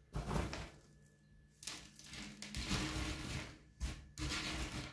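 Hands scooping dry, coarse bark orchid mix out of a plastic tub and spreading it on a table: the bark chips rustle and clatter in several spells with short pauses between.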